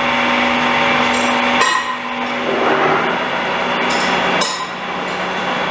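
Metal lathe running with a steady hum and whine, the sound changing abruptly about one and a half seconds in and again near four and a half seconds, with a few metallic clicks.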